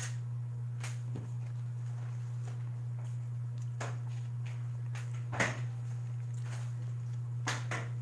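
A steady low hum with a handful of light knocks and clicks of things being handled on a table, the loudest about five and a half seconds in.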